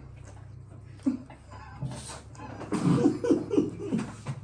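A person's short non-speech vocal bursts, a quick run of them for about a second past the middle.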